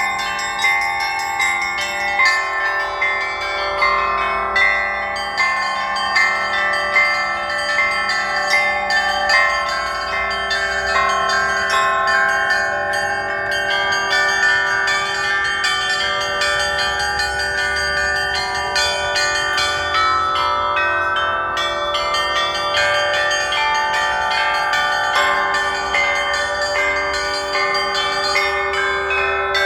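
Russian church bells rung in the zvon style: many bells overlapping in a continuous peal. Accented strokes fall about once a second in the first third, then the ringing thickens into a dense wash of tones.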